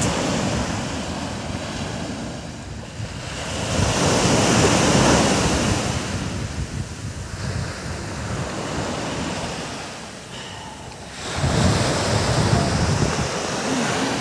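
Sea surf washing onto a sandy beach, an even rush that swells twice, a few seconds in and again near the end, with wind buffeting the microphone.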